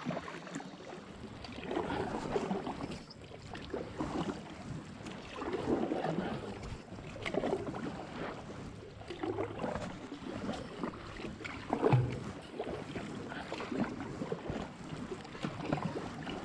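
Canoe paddles stroking through calm river water, a swish with each stroke about every two seconds. About twelve seconds in there is a single louder thump.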